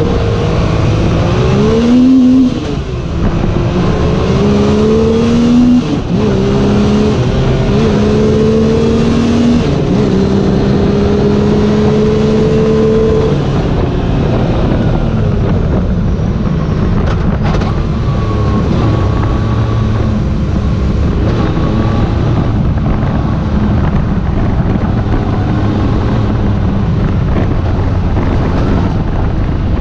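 UTV fitted with a 1000 cc motorcycle engine, driving under power: the engine revs climb and drop back several times in the first half as it shifts up through the gears, then it runs at a steadier speed for the rest.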